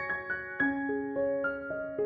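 Soft background piano music: a slow, gentle melody of single notes, each struck note ringing and fading before the next.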